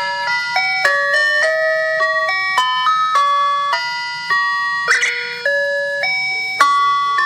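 Electronic chime melody used as an emergency alert tone: bell-like notes, several sounding together, changing every quarter to half second. A brief noisy swish about five seconds in.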